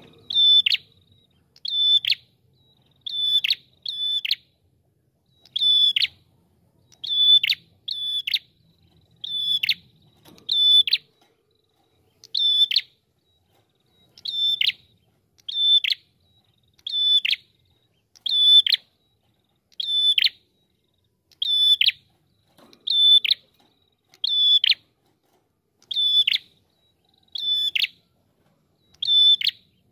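Red-headed prenjak calling over and over: a short, high, loud note repeated about every second and a half, each ending in a quick downward slide, sometimes doubled.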